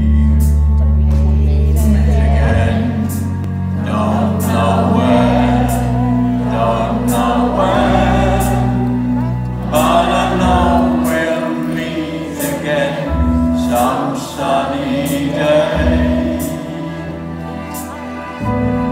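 A women's vocal group and a children's choir singing together over a backing track, with long held bass notes under the voices and a light, steady tick keeping the beat.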